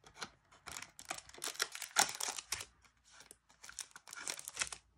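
Foil trading-card booster packs and the plastic blister packaging being handled: a run of short crinkles and rustles with brief pauses between them.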